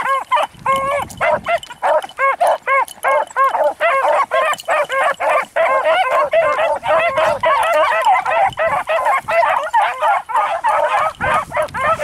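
A pack of beagles baying continuously, several hounds' voices overlapping in a steady, rapid chorus as they work a scent line through the grass. Wind buffets the microphone with a low rumble near the start and again near the end.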